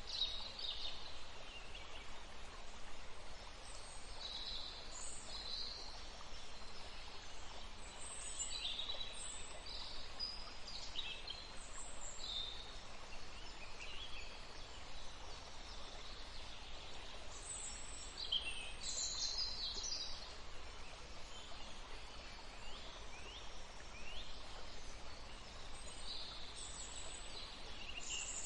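Steady rush of running water with songbirds chirping and calling repeatedly over it.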